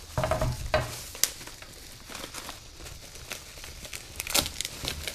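Plastic packaging crinkling and crackling as hands open the bag around a replacement heating element, with a sharper burst of crackles about four and a half seconds in.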